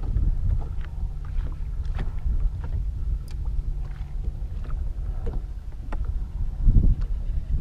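Wind buffeting the camera microphone, a steady low rumble, with a few faint scattered clicks.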